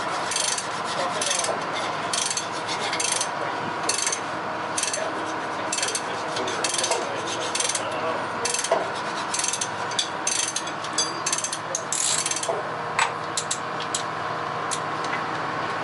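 Socket ratchet wrench clicking in repeated short strokes as a nut is turned during the rod-bearing job on a 1926 Twin City gas engine, about two strokes a second, thinning to a few single clicks near the end.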